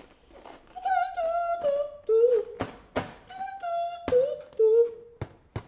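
A high voice sings short held notes, each phrase stepping down in pitch, cut by about five sharp clicks in the second half.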